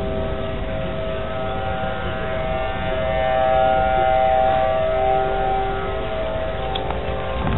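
Outdoor civil-defense warning sirens wailing together, several steady tones overlapping in a chord, swelling about three seconds in and easing again. They are sounding for a severe thunderstorm warning.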